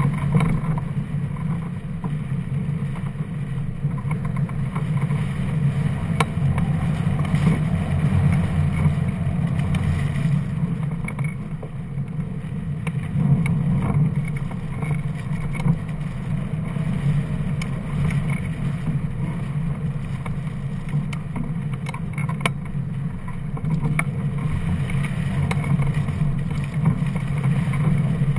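Airflow buffeting the microphone of a camera mounted on a hang glider in flight: a steady low rumble that swells and eases, with a few faint ticks.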